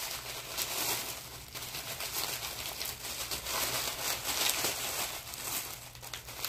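Tissue paper crinkling and rustling in irregular spurts as a gift package is unwrapped by hand.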